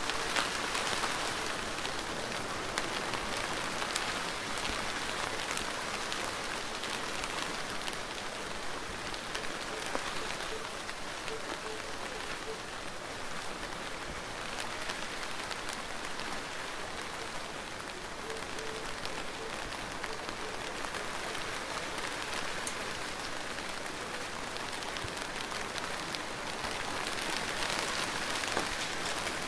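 Steady rain falling, with the patter of single drops striking close by, growing a little heavier near the end.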